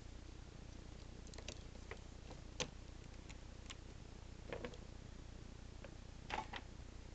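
Scattered small clicks and taps of a phone's small parts being handled during reassembly. The sharpest click comes about two and a half seconds in and a little cluster near the end, over a faint low steady hum.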